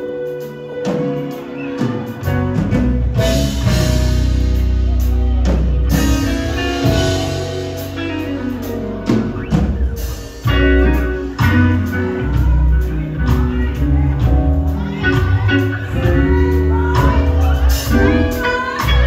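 Live gospel band playing: electric guitar, bass and drum kit, with a strong bass line and drum hits throughout and a singer's voice over the music.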